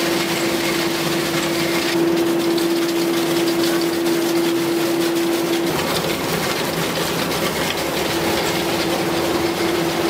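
Underground mining machine's cutter head running against the face under water sprays: a steady mechanical running noise with a constant hum. The hum drops out about six seconds in and comes back a couple of seconds later.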